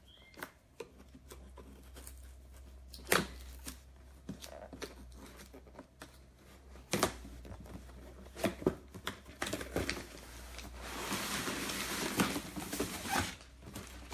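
Cardboard box being cut open and unpacked by hand: a few scattered sharp knocks and clicks, then several seconds of steady rustling and crinkling of packing material starting about two-thirds of the way through.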